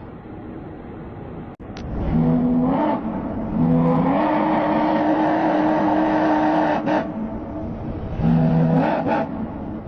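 Low-pitched diesel locomotive horn sounded three times as a sound effect. Each blast slides up a step in pitch and then holds. The middle blast is the longest, about three seconds.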